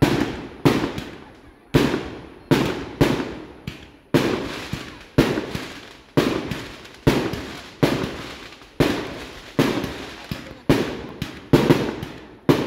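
Fireworks going off in quick succession: sharp bangs of bursting shells, a little more than one a second, each fading away before the next.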